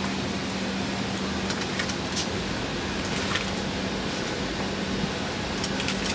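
Steady rushing air-conditioning noise of an airliner cabin with a low steady hum, and a few faint clicks and rustles as a person slides from a wheelchair into a seat.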